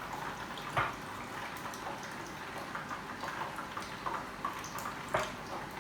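Battered chicken pieces deep-frying in hot oil: a steady crackling sizzle, with a short sharp knock about a second in and another near the end.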